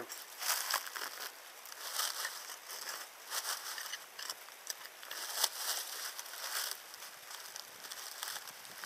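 Dry leaves and soil crunching and scraping in irregular bursts as a small hole is dug out by hand in dry leaf litter.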